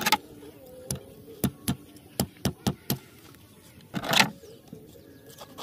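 Scissors snipping off the dorsal fin spines of a large grey mullet: a quick run of about seven sharp snips in under two seconds, with a longer, louder cut about four seconds in.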